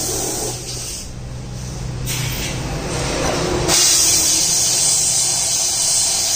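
Compressed air hissing from an air blow gun, on and off at first, then a loud steady blast from a little past halfway, over a low machine hum.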